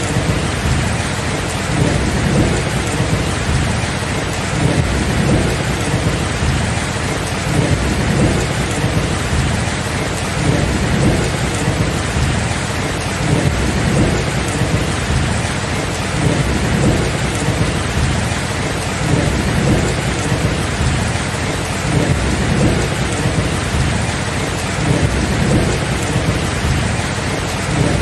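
Steady rain hissing, with low thunder rumbling underneath that swells and eases every couple of seconds.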